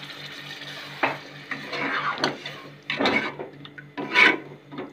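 A cooking spoon stirring and scraping through a watery potato-and-mince curry in a metal pot. There are a few separate strokes, and the loudest comes near the end.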